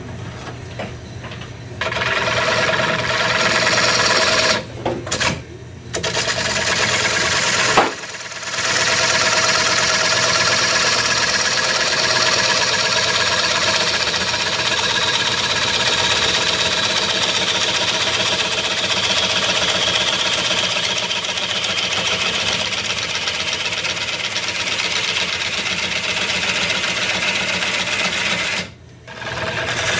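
Bowl gouge cutting into a spinning wooden bowl blank on a wood lathe while roughing out the bowl. The steady cutting hiss of shavings runs over the lathe's motor hum and drops out briefly about five seconds in, about eight seconds in, and near the end.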